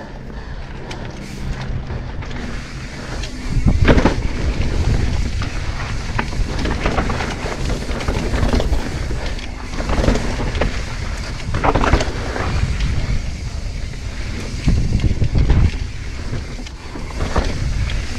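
Mountain bike descending a rocky dirt trail: a steady rumble of tyres and rattling bike, with several louder knocks as it hits rocks.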